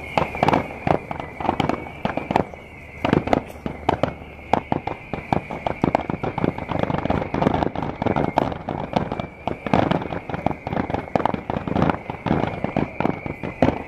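Fireworks grand finale barrage: many shells bursting in quick, overlapping succession, with sharp bangs several times a second. A steady high-pitched whine runs underneath.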